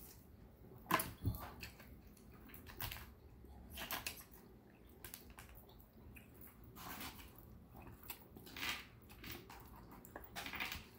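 Faint eating sounds: a fork scraping and clicking against a takeout container as it picks up noodles and orange chicken, with chewing between. The clicks come every second or two.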